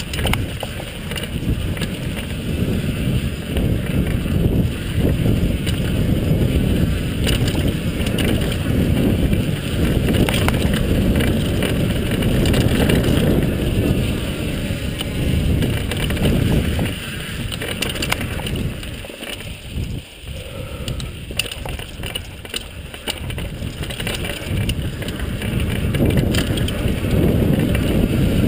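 Wind buffeting the microphone and tyres running over a dirt trail on a mountain-bike descent, with frequent small rattles and clicks from the bike over the bumps. It goes briefly quieter about two-thirds of the way in.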